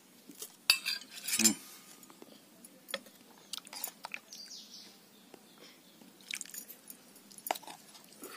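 Steel ladle and serving spoon clinking and knocking against steel plates, bowls and a cooking pot while rice and fish curry are served: scattered short clinks, a few louder knocks about a second in.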